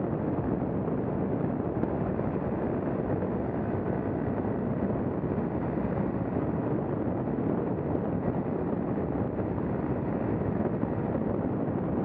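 Paramotor engine and propeller running steadily, mixed with wind rushing over the on-board microphone in flight.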